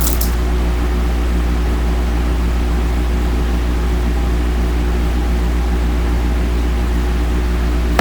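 A steady low hum, unchanging throughout, with no other distinct sound over it.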